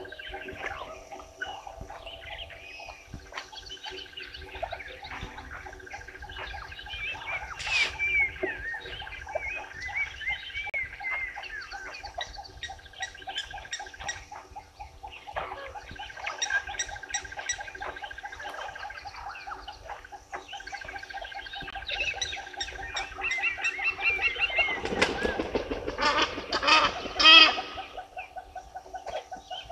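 Wild birds singing and calling, with many short chirps and warbled notes throughout. Near the end comes a louder burst of harsh, rapidly repeated calls, the loudest sound here.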